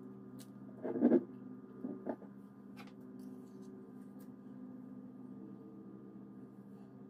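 Spoon and knife spreading Nutella on a sheet of sponge cake: a few soft knocks, the loudest about a second in, and faint clicks, over a steady electrical hum.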